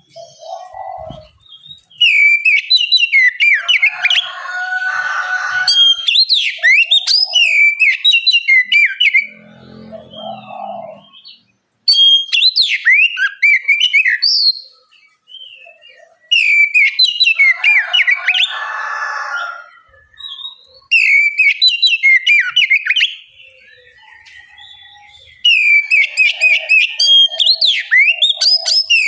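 Oriental magpie-robin (kacer) singing: loud bursts of rapid, varied whistles and chirps a few seconds long with short pauses between them, some passages mixed with harsher rasping notes.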